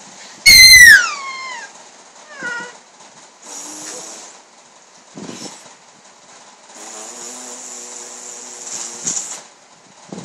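Snoring: a short rasping snore breath, then a long one of about two and a half seconds. Before them comes a loud, high squeal gliding down in pitch about half a second in, and a smaller falling squeal a couple of seconds later.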